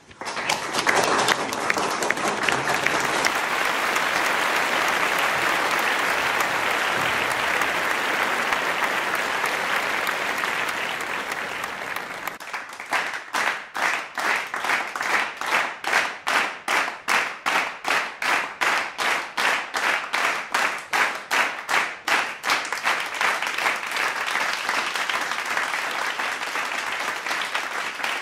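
Audience applauding, which turns at about the middle into rhythmic clapping in unison at about three claps a second, then breaks back into ordinary applause near the end.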